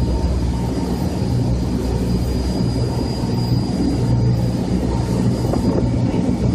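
A motorboat's engines running steadily under way, a low even drone, with the rush of water from the wake.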